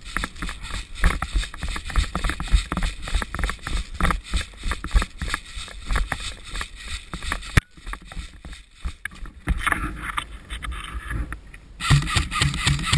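Footsteps running through snow, a steady stream of thuds and rustles with gear jostling. A little past halfway it cuts off with a sharp click and goes quieter, then rustling and movement pick up again.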